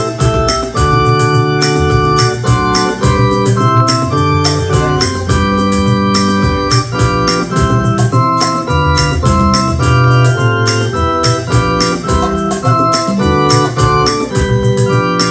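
Electronic keyboard played with both hands: a hymn arrangement in full held chords that change every second or so, with quicker notes moving above them.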